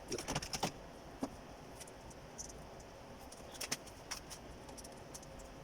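Short, sharp metallic clicks and clinks from hands and tools working on parts in a car's engine bay. A quick cluster comes at the start, another in the middle, and single clicks fall in between.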